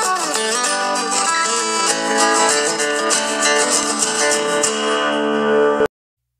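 Instrumental intro music led by plucked guitar, cutting off suddenly near the end.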